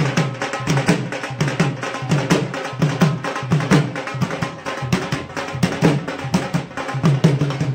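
Music driven by fast, steady drumming and hand percussion, with a repeating low bass pattern under it.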